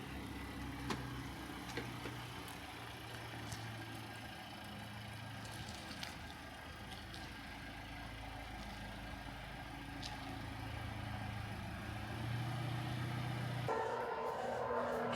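A car engine running steadily, with a few faint clicks. Music comes in near the end.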